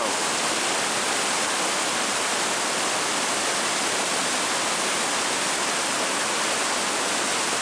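Steady rushing of a river running over rapids below the footbridge, loud and unbroken.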